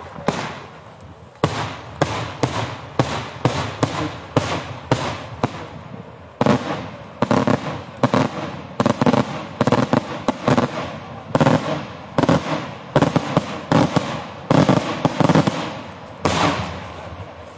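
Daytime aerial firework shells bursting in the sky: a rapid string of sharp bangs, often one or two a second and sometimes several close together, stopping near the end.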